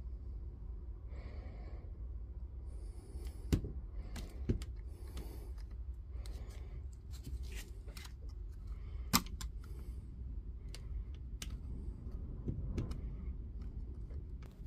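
Small clicks, taps and light scrapes of hand work on a cordless-tool battery pack and its circuit board, with a few sharper clicks, the loudest about nine seconds in, over a low steady hum.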